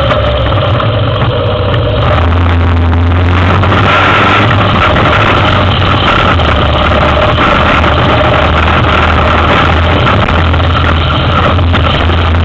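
2003 Yamaha Big Bear 400 ATV's single-cylinder four-stroke engine running loud and steady while riding slowly over an off-road trail.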